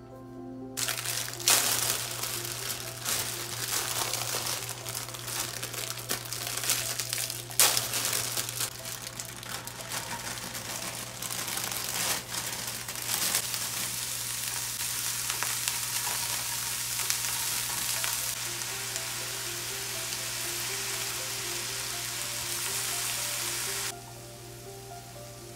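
Bean sprouts, garlic chives and carrot sizzling and crackling in hot oil in a frying pan as they are stir-fried, with a few sharp clicks. The sizzle starts about a second in and falls away suddenly near the end.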